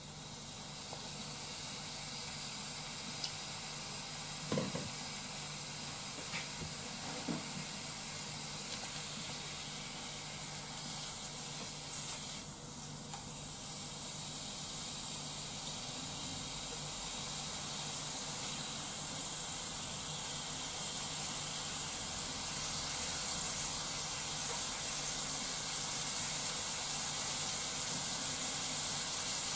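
Thin slices of meat sizzling in sukiyaki sauce in a frying pan: a steady hiss that grows gradually louder as more slices go in and the pan heats. A few short clicks from the chopsticks tapping the pan.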